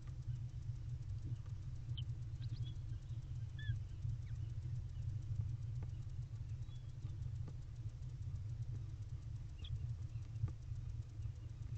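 Steady low hum on the nest-box camera's microphone, with faint, short chirps of small birds scattered through it and a few soft clicks.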